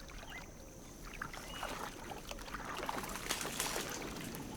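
Manatees surfacing in a shallow mangrove creek: gentle water lapping and trickling with small splashes and drips. A faint steady high-pitched whine runs underneath.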